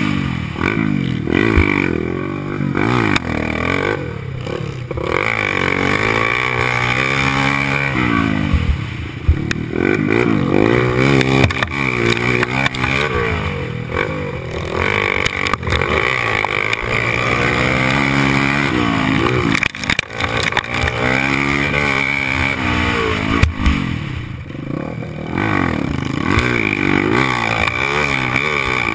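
Honda XR 250 Tornado's single-cylinder four-stroke engine under hard riding, its pitch rising and falling over and over as the throttle opens and closes through the gears.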